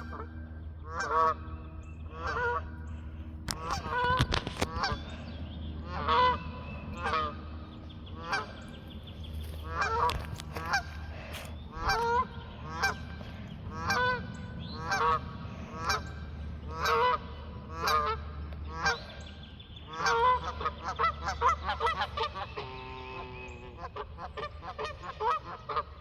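Geese honking over and over, roughly one honk a second, with several birds' calls overlapping at times.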